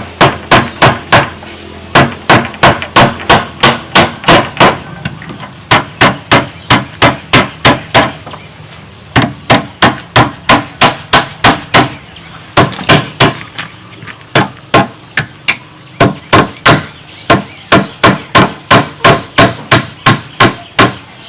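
A hammer striking over and over, about three blows a second, in runs of several blows with short pauses between them.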